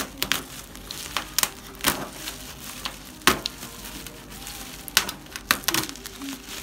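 Bubble wrap and packing tape being cut with a knife: crinkling and crackling, broken by irregular sharp clicks and snaps.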